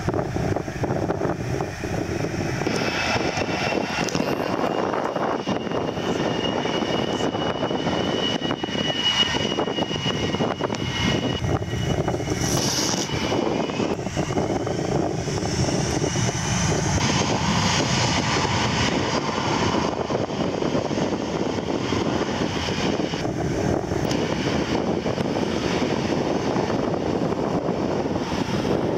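Large jet aircraft engines running on the airfield: a steady rush with a thin high whine that slides slowly in pitch through the first half.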